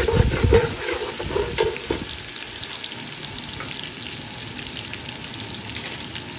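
Golden-fried onions sizzling in hot oil in an aluminium pot. A metal slotted spatula stirs and scrapes against the pot with a few clinks and knocks for about the first two seconds. After that the frying settles into a steady crackling sizzle.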